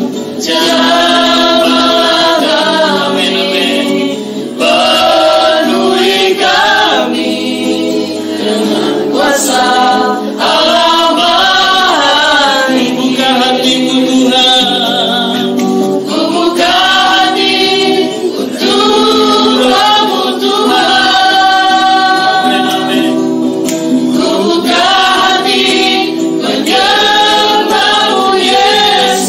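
A group of voices singing a worship song together, with long held notes.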